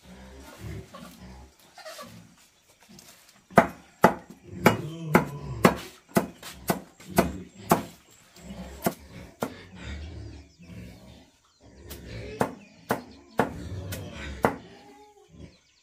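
Long-bladed knife chopping green leaves on a round wooden board: a run of sharp knocks, two or three a second, starting about three and a half seconds in, then a pause and a second, shorter run near the end.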